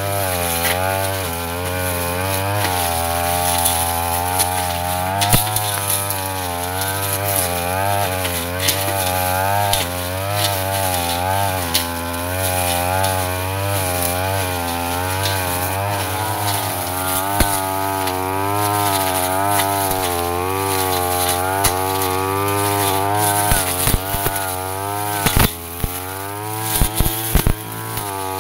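Yasuka brush cutter engine running at high revs while its blade cuts dense ferns, the pitch dipping and recovering about once a second as the cut loads and frees the engine. Near the end comes a run of sharp knocks.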